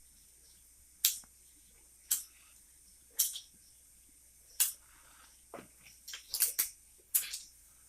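A spice container being opened and spooned from: a series of short, sharp clicks and rattles, about one a second, bunching together near the end.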